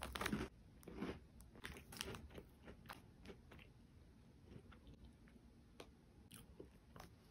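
A person chewing a crunchy biscuit: faint, irregular crunches every few tenths of a second, loudest in the first half second.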